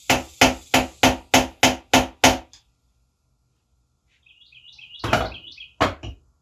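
Hammer striking metal in a quick run of eight blows, about three a second, while working a stuck handlebar part loose. Near the end comes a brief high squeak, then two more blows.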